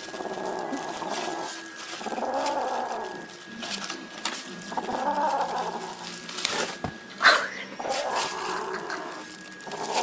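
Hairless cat growling over raw meat in a plastic bag, in four or five long low growls with short pauses between. Plastic bag crinkling and crackling between the growls, one sharp crackle about seven seconds in being the loudest sound.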